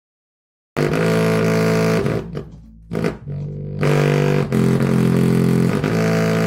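Bass-heavy test music played loud through a JBL portable speaker in its low-frequency mode: deep held bass notes with many overtones. It starts just under a second in, drops away briefly around two seconds, and comes back loud by about four seconds.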